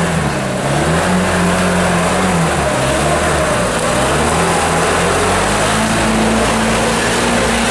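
UAZ off-road vehicle's engine revving hard under load as it drives through deep mud, the revs dipping and rising several times and holding higher near the end, over a loud rush of tyres churning the mud.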